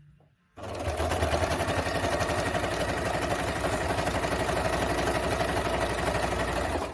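Singer 2282 Tradition household sewing machine running at a steady fast speed, stitching through thick layers of material, starting about half a second in and stopping near the end. It runs with an even, rapid stitch rhythm and does not labour: it sounded easy.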